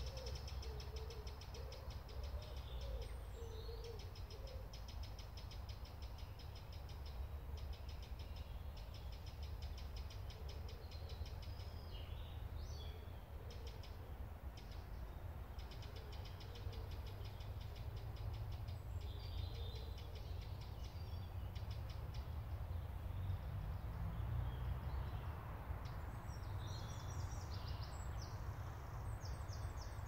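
Woodland songbirds singing: high, rapid trilling phrases a few seconds long, repeated with short gaps, over a steady low rumble.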